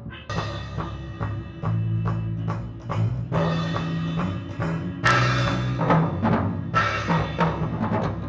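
Live band music during a sound check: drum kit with cymbals over a bass line changing notes, growing louder about five seconds in.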